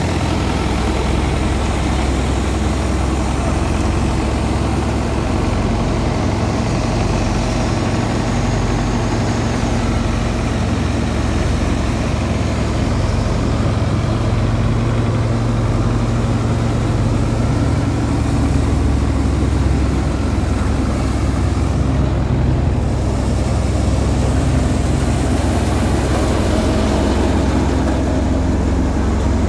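Belarus tractor's diesel engine running steadily under load, belt-driving a thresher whose spinning drum and blower run along with it in one continuous mechanical drone.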